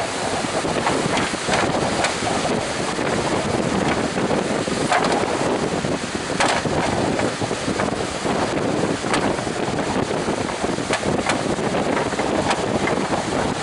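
Strong wind buffeting the microphone over the steady rush of heavy surf.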